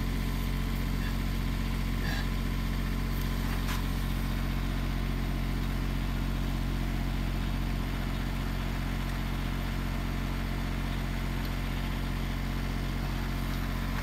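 2007 Dodge Grand Caravan's V6 engine idling steadily, heard from under the open hood.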